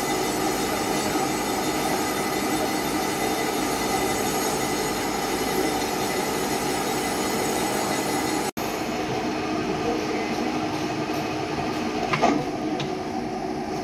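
Large engine lathe running, turning a chrome-plated ship's engine cylinder liner in its chuck, with a steady mechanical hum and whine of many fixed tones. It drops out for an instant about two-thirds of the way in, and a brief clatter comes near the end.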